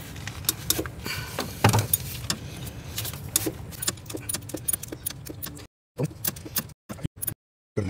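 Irregular metallic clicks and clinks of a socket wrench and sockets working on the alternator's mounting bolts, over a low steady hum. The sound drops out to nothing in several short gaps near the end.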